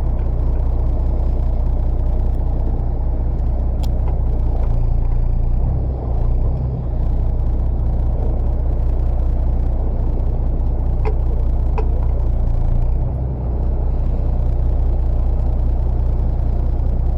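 Steady low rumble of a fishing boat's engine running, with a few faint short clicks.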